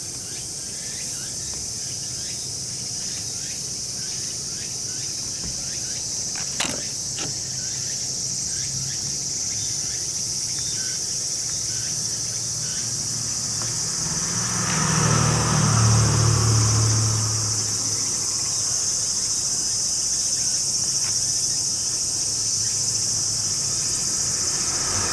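Steady high-pitched insect chorus. A low rumble swells and fades about fifteen seconds in, and there is a single sharp click about six seconds in.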